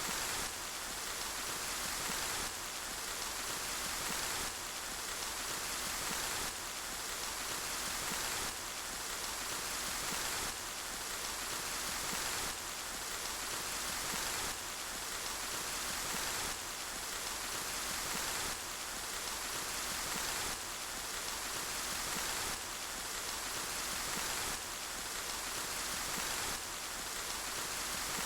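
Steady rain with a dense, even hiss of drops, and a slight jump in level about every two seconds where a short rain recording repeats in a loop.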